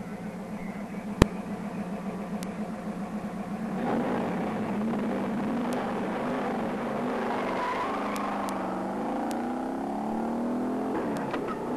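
1966 Plymouth Satellite's 426 Hemi V8 idling with a lumpy, pulsing beat, then launching at full throttle about four seconds in, revs climbing through first gear. Near the end the revs drop for a quick four-speed upshift and climb again. One sharp click sounds about a second in.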